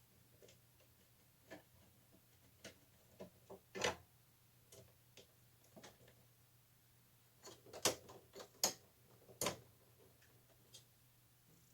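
Irregular light clicks and knocks of hand and tool work on an old Pushmatic circuit breaker as it is worked loose from the breaker panel, the loudest few coming together about eight to nine and a half seconds in.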